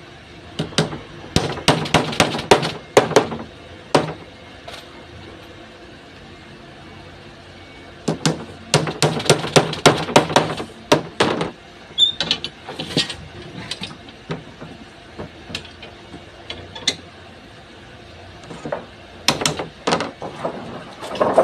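Hammer striking a wooden strip in two runs of quick, sharp blows, several a second, with scattered lighter taps between them and a few more blows near the end.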